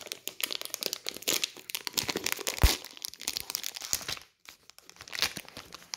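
A plastic packet of Lacasitos chocolate candies crinkling as it is handled and torn open by hand. There is one sharp thump about two and a half seconds in, the loudest moment, and a last short crinkle near the end.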